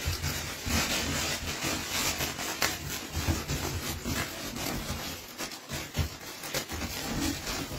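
Belgian Malinois puppies biting and tugging at a fabric rag held out by hand, with irregular rustling and scraping of cloth and paws on the hard floor.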